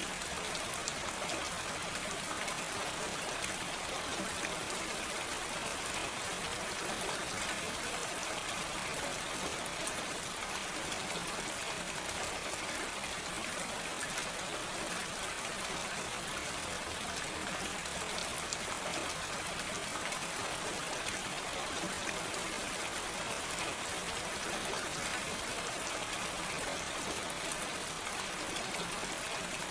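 Steady gentle rain falling without thunder, an even hiss with fine pattering drops.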